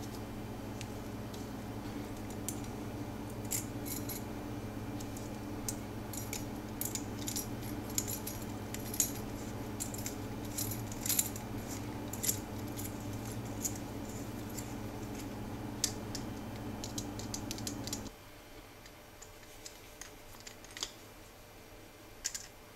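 Small metal flashlight parts clicking and clinking as they are handled and fitted into the turned wooden body, in scattered light taps. Under them runs a steady low hum that cuts off suddenly about 18 seconds in.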